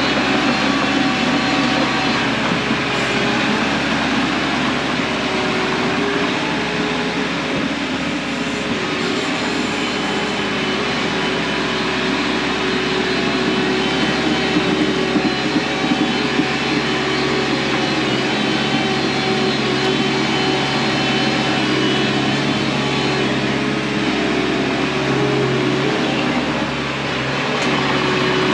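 Bobcat T630 compact track loader's diesel engine running steadily while the machine cuts and moves dirt.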